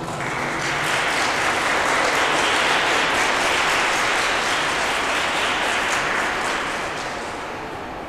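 Audience applauding at the end of a song, the clapping dying away near the end.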